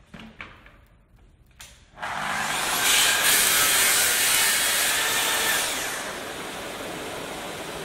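Festool HK 55 circular saw, with its dust extractor, starting up about two seconds in and cutting a 14.5-degree angle through an engineered timber floorboard on its FSK guide rail. The cut runs for about four seconds, then the noise drops to a lower steady running sound. A few light clicks of handling come before the start.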